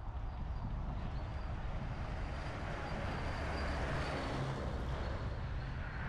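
Wind rushing over the microphone of a bicycle-mounted action camera while riding, with steady road noise; a vehicle going the other way passes around the middle, the hiss swelling as it goes by.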